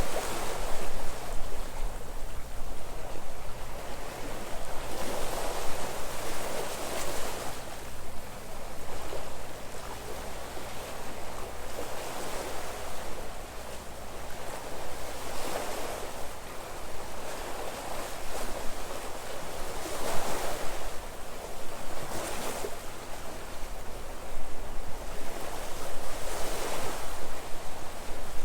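Sea waves breaking on the shore, each wave surging in and washing back, with a fresh wave every few seconds.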